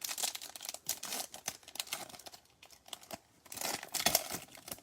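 Foil wrapper of a Topps Chrome baseball card pack being crinkled and torn open by hand: a rapid, irregular crackling, loudest in a burst near the end.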